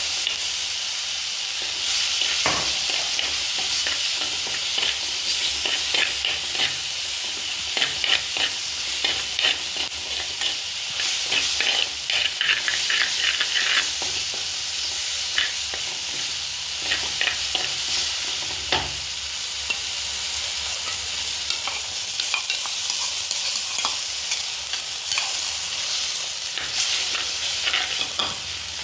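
Chilli masala sizzling in hot oil in an earthen clay pot, with a spoon stirring it and scraping and tapping against the pot's sides in frequent short strokes.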